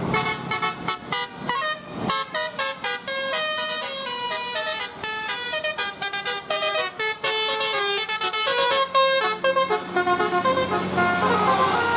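Bus 'telolet' basuri musical air horn playing a melody: a fast run of short notes at changing pitches, settling into longer held tones in the last few seconds.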